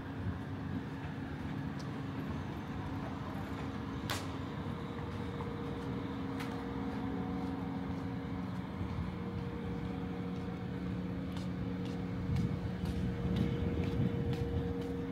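Street traffic: a motor vehicle's engine running steadily close by, with a low steady hum. A sharp click comes about four seconds in.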